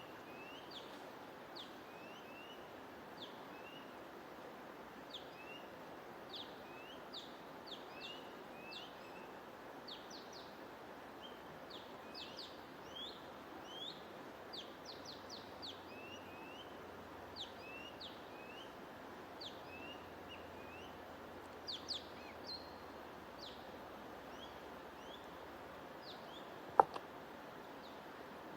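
Small birds chirping in many quick, short notes over a steady even hiss. A single sharp click sounds near the end.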